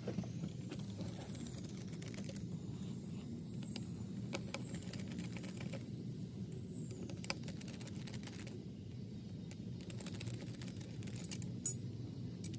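Scattered light clicks and taps of small screws, a screwdriver and metal engine parts being handled and set down on a padded table, over a steady low hum.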